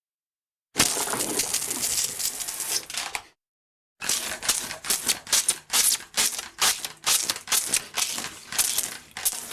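Toy water gun firing: one continuous squirt of about two and a half seconds, then after a short pause a run of quick, sharp squirts, about two or three a second.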